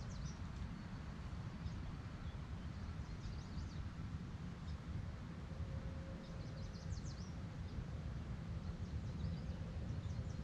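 Small songbirds chirping in quick high twittering phrases, a few times, over a steady low outdoor rumble.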